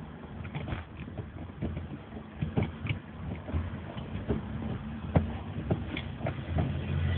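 Irregular creaks and short clicks, a dozen or so at uneven intervals, over a steady low hum.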